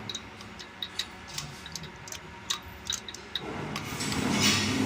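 Ratchet wrench with a 16 mm socket clicking in short, irregular runs while loosening a spark plug on a CNG truck engine. Near the end a steady low mechanical hum comes up and grows louder.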